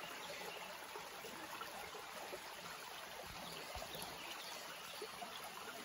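Shallow creek water trickling steadily, with a few faint small clicks about three to four seconds in.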